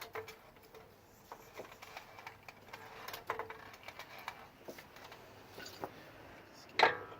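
Scattered light clicks of tools, then near the end a sharp, ringing hammer blow on steel: tapping the steering knuckle to pop the tie rod end's taper loose.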